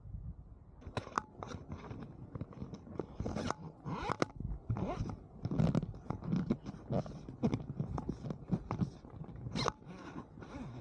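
Irregular crunching and scraping: many sharp, uneven crunches over several seconds, with no steady rhythm.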